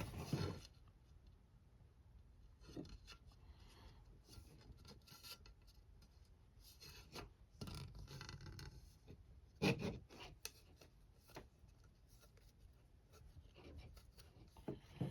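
Quiet handling noises as a rubber glazing channel is worked onto a camper window pane: faint rubbing and scraping with scattered small knocks, and one louder knock about ten seconds in.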